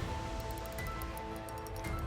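Soft background music of held notes that change pitch every half second or so, over a low steady rumble.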